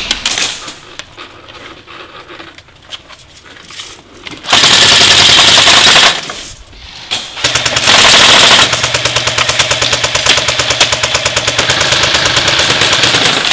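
Airsoft electric guns firing on full auto. A few scattered clicks and shots lead into a loud burst of about a second and a half, and then a long rapid rattling burst of about six seconds with the gearbox motor's steady whine under it.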